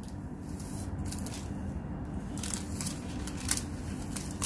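Paper backing sheets of edible silver leaf rustling as they are pressed by hand onto the almond katli and peeled away, a few short, soft crinkles over a steady low hum.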